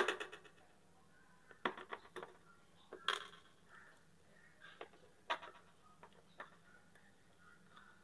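Scattered light clicks and taps of small hard plastic and metal parts being handled while an LG washing machine's drain-valve actuator is taken apart by hand.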